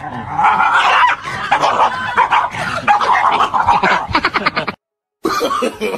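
An animal's rapid, noisy cries, loud and irregular, that cut off suddenly about three-quarters of the way through; after a brief gap a different sound with wavering pitch begins.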